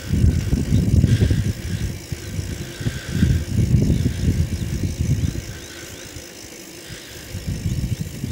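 Bicycle ride on an asphalt lane: low wind buffeting on the microphone mixed with tyre rumble and light rattle, coming in uneven surges and easing for a couple of seconds before picking up again near the end.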